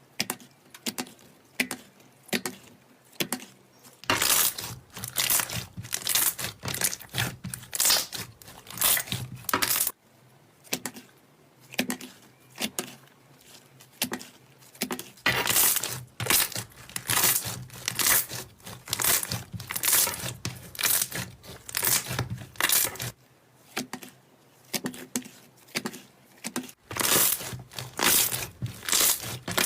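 Slime being squeezed and kneaded by hand, giving dense runs of crisp crackles and pops that come in stretches of a few seconds, with quieter pauses between.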